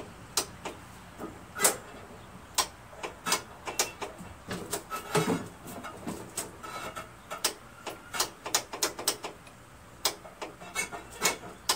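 Irregular clicks and knocks from a lawn tractor being handled while its engine is stopped: the seat, body and controls being moved as someone climbs on. The clicks come closer together near the end.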